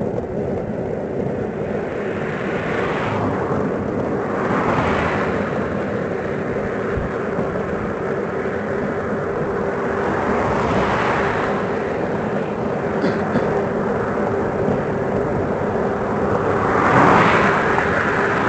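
Steady wind and road noise from riding a bicycle along a highway, with motor vehicles swishing past three times; the last pass, near the end, is the loudest.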